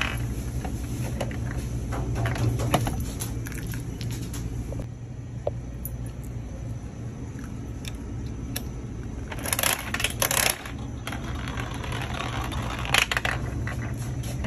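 Coin-operated spiral gumball machine in use: scattered clicks and rattles of a gumball rolling down the plastic spiral, and a dense burst of metallic clicking about ten seconds in as a coin goes in and the metal crank is turned, all over a steady low hum.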